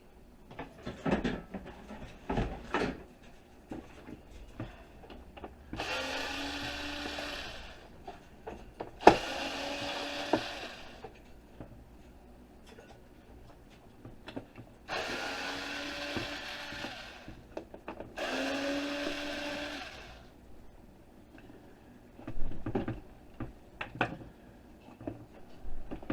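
A power drill-driver run four times in short bursts of a second or two, its motor whine rising briefly as each one starts, while taking apart an electric heater; knocks and rattles of parts being handled come between the runs.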